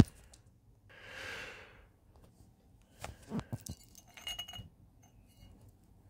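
Handmade clay teapot and its ceramic lid being handled, clinking and knocking together in a cluster of short clinks with a brief ring, about three to four and a half seconds in. There is a soft breathy swell near one second in and a sharp click at the very start.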